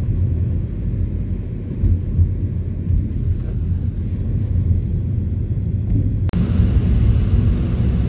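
Low steady rumble of a car driving, engine and tyre noise. About six seconds in it drops out for a moment and comes back with more hiss added above the rumble.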